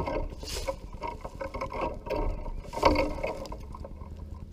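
Rustling and scraping handling noise close to the microphone as a caught bass is held and handled, over a steady low wind rumble. Two sharper, louder rustles come about half a second and three seconds in, then it settles.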